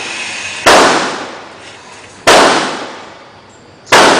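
Three loud gunshots, about a second and a half apart, each followed by a short decaying echo.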